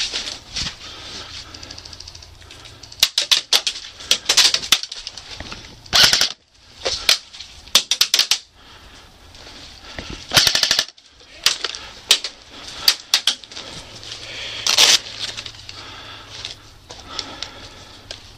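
Airsoft guns firing in quick bursts of sharp clicks and cracks, with several separate volleys and short single shots.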